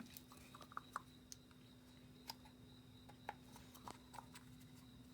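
Faint, scattered light clicks of a screwdriver and small parts being handled while rubber gaskets are picked off a car's oil filter housing cap, over a steady faint hum.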